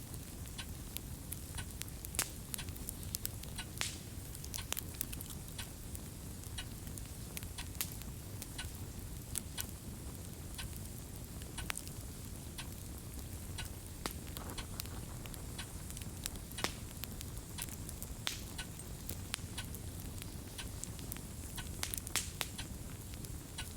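Fireplace crackle: irregular snaps and pops over a steady low rumble.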